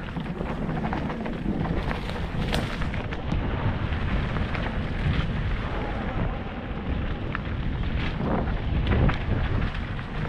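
Mountain bike riding fast down a dirt forest singletrack: a steady rumble of wind on the microphone and tyres rolling over dirt and leaf litter, broken by frequent sharp knocks and rattles from the bike over roots and bumps, loudest near the end.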